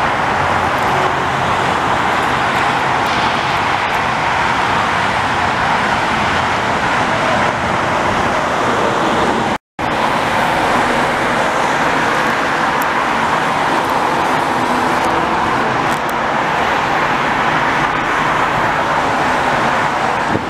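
Steady highway traffic noise from passing cars, with a brief dropout just under halfway through.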